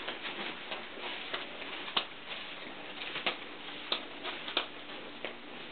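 Quiet room with a faint steady hum and scattered light clicks and taps, a few per second at irregular spacing: handling noise and footsteps of someone walking across carpet with a handheld camera.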